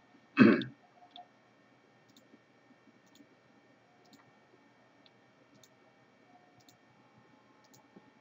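Faint computer mouse clicks, scattered at roughly one a second, after a brief loud sound about half a second in.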